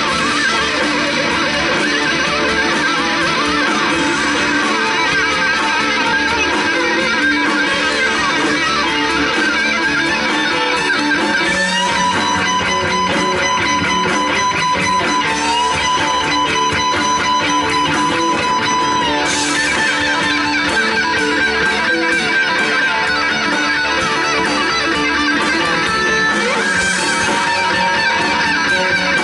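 Instrumental rock trio playing live: electric guitar over bass and drums. The guitar holds long sustained notes, with one held note in the middle stepping up in pitch.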